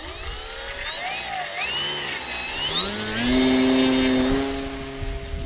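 Fun Cub RC plane's electric motor and propeller whining close up. The pitch glides up and down with the throttle, then rises about three seconds in to a steady high whine at takeoff power, and cuts off suddenly near the end.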